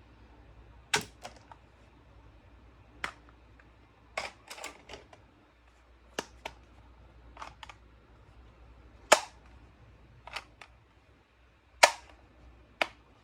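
A series of sharp, short clicks at irregular intervals, some in quick pairs or triples, the loudest about nine and twelve seconds in.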